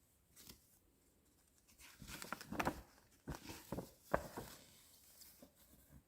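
Handling noise: a quick run of rustles, clicks and knocks from about two seconds in, the sharpest knock just after four seconds, then faint scattered ticks.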